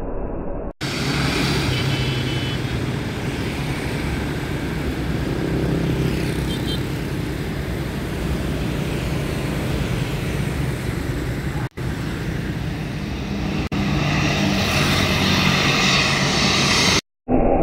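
CASA C295M transport aircraft's twin turboprop engines and propellers droning as it flies low overhead on landing approach, in several short shots joined by abrupt cuts.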